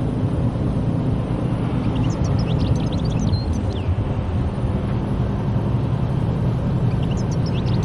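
Steady low rumble of a car's engine and tyres heard from inside the cabin while driving, with faint short high chirps now and then over it.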